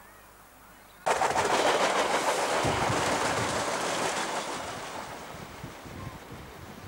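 Diesel suburban railcar passing close by: a loud rush of engine and wheel-on-rail noise starts abruptly about a second in, then gradually fades as it moves away.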